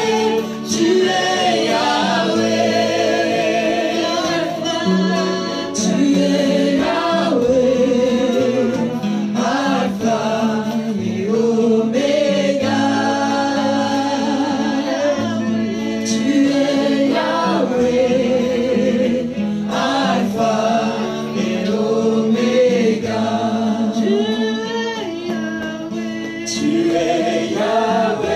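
Live church worship song: a woman's lead voice with other singers joining, over a strummed acoustic guitar.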